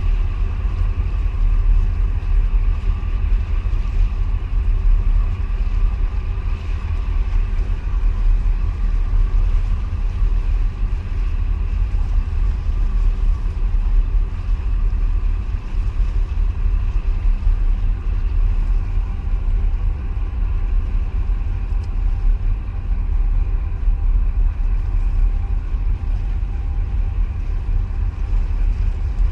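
Wind buffeting the microphone in a steady, fluttering low rumble, over a faint steady engine hum from across the water.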